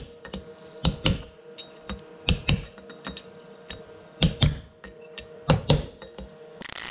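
Hammer tapping a pin punch to drive a bearing race down into a Toyota Land Cruiser FJ40 front hub, metal on metal, in quick pairs of light taps about every second and a half. A burst of hissing noise starts near the end.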